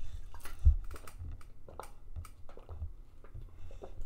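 Quiet room tone with faint, irregular small clicks and ticks over a low hum.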